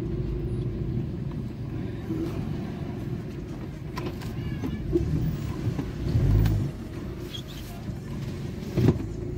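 Vehicle engine running at low speed inside the cabin as it creeps into a parking spot, with a steady hum, a louder low surge about six seconds in and a sharp click near the end.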